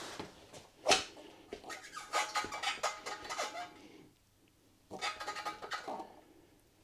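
A sharp knock about a second in, then squeaking and rubbing from new rubber whitewall motorcycle tyres being handled and shifted. The squeaking comes in one burst of about two seconds and a shorter one about five seconds in.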